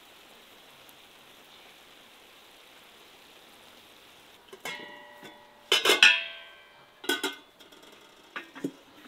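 Lamb frying in its fat with a steady sizzle. About four and a half seconds in, this gives way to a run of ringing clinks and clangs of enamelled pots and metal cookware being handled, loudest about halfway through.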